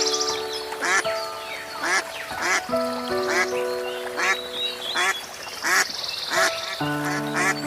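A duck quacking repeatedly, about once a second, over background music with long held notes.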